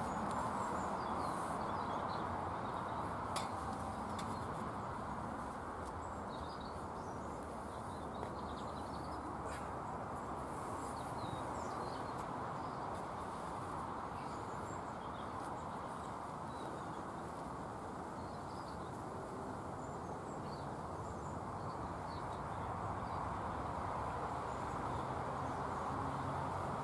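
Small birds chirping faintly now and then over a steady background hiss, with two light clicks, about three seconds and about nine seconds in.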